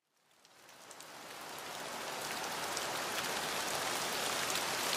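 Steady rain falling, a dense hiss of many small drop impacts. It fades in from silence over the first couple of seconds, then holds level.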